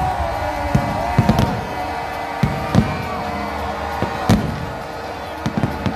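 Aerial fireworks shells bursting over a stadium: a string of sharp bangs at irregular spacing, roughly one a second, with crackle in between. They are heard over continuous loud music.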